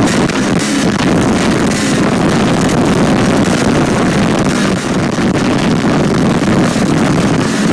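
Snowmobile engine running steadily at speed, with wind rushing over the microphone.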